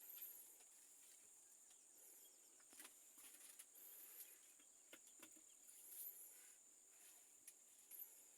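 Near silence: a faint, steady, high-pitched insect drone, with a few brief faint chirps and light clicks.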